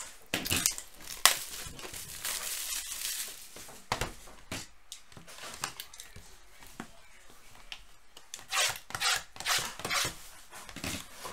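A sealed cardboard trading-card hobby box being unwrapped and opened by hand: plastic wrap tearing and crinkling, cardboard rubbing and sliding, with scattered sharp taps and knocks as the lid and mini-boxes are handled.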